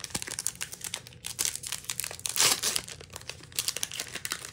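Foil booster pack wrapper crinkling and tearing as it is opened by hand: a dense run of crackles, loudest about halfway through.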